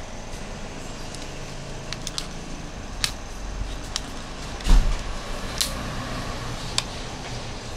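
A few light clicks and taps from handling a Samsung Galaxy Tab A (SM-T285) tablet's plastic casing as fingernails work along its edge seam, with one heavier thump a little past halfway, over steady background noise.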